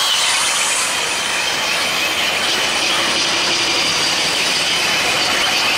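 Line-following robot's suction fan running at full speed: a steady high-pitched whine over a loud hiss.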